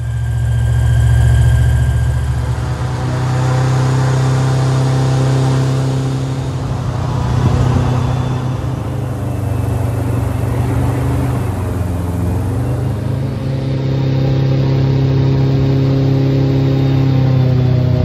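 Airboat's engine and propeller running at speed: a loud, steady drone over rushing air. The pitch dips briefly about twelve seconds in, then comes back up.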